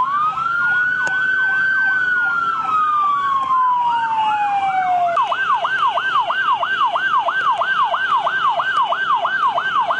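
Two vehicle sirens sounding together. One gives a slow wail that rises, then falls away and stops about halfway through. The other gives a fast yelp of about three sweeps a second that carries on alone after that.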